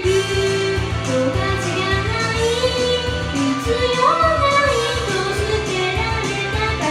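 A woman singing a Japanese pop ballad over a karaoke backing track with drums, holding and sliding between long notes.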